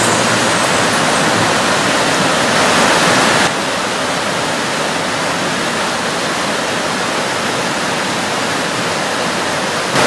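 Creek water rushing over rocks in white-water rapids, a steady rushing that drops slightly in level about three and a half seconds in.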